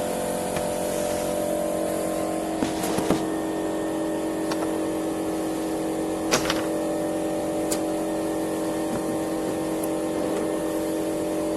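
A steady machine hum made of several steady tones, with a few sharp clicks or knocks scattered through it, the loudest around three and six seconds in.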